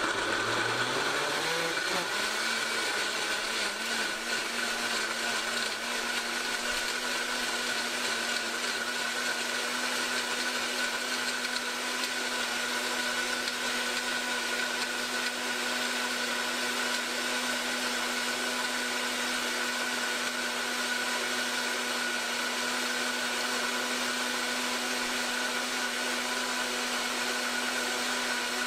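Breville Fresh & Furious blender starting its pre-programmed green smoothie cycle: the motor whine rises over about the first two seconds as it spins up, then runs steadily at high speed, blending kale, fruit and ice cubes into a smoothie.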